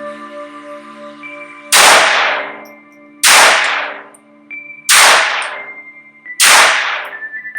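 Taurus TX22 .22 LR pistol fired four times at a slow, steady pace, about one shot every second and a half, each sharp crack followed by a short echo. Soft ambient music plays underneath.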